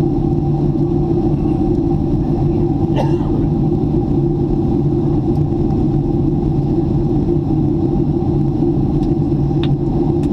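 Jet airliner cabin noise in flight: a steady, low, even drone of engines and airflow with a faint steady tone above it. A brief faint click about three seconds in.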